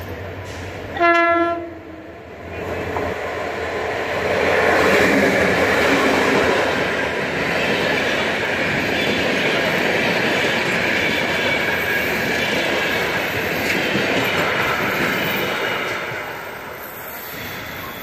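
TCDD DE 33046 diesel-electric locomotive gives one short horn blast about a second in, then comes by with its engine running, followed by the steady rolling wheel noise of a string of freight wagons passing close, which eases off near the end.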